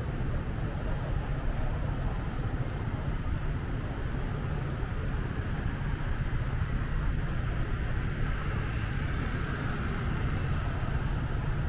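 Steady low rumble of outdoor city ambience with no distinct events, like traffic heard from a walkway.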